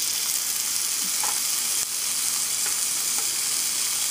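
Raw marinated chicken pieces sizzling loudly in hot oil and fried tomato-paste masala in a frying pan, a steady high hiss as the meat hits the hot pan.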